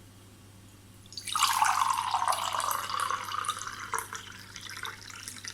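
Cold tap water poured from a jug into a mug. The splashing stream starts about a second in and eases off near the end.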